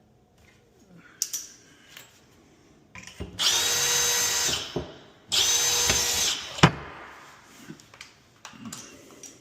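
Power drill running in two short bursts of about a second each, with a steady whine, followed by a sharp knock; small clicks and taps of work on cabinet hardware around it.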